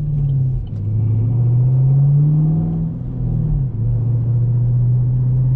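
2010 Camaro SS's 6.2-litre V8 pulling away through the six-speed manual's gears. The revs climb and drop at two upshifts, about half a second in and near four seconds in, then the engine runs steadily.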